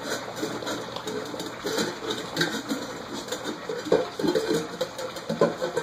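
A litter of puppies lapping milk from a shared metal bowl, with many short overlapping grunts and squeaks.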